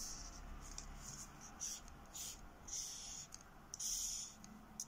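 Felt-tip marker scratching on paper: a series of short, faint strokes as lines are hatched across a drawing.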